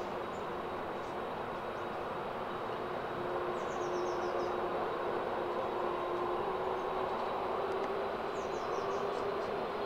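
Twin-engine jet airliner's turbofan engines running at low thrust as it taxis and turns onto the runway: a steady whine that grows a little louder about three seconds in.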